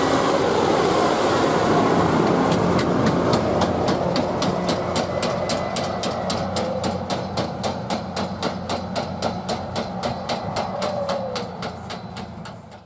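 Tractor towing a forage loader wagon along a farm lane, the wagon bouncing and rattling. A rapid, even clatter of about five knocks a second comes in after a couple of seconds over the steady running noise, and everything fades as the rig drives away.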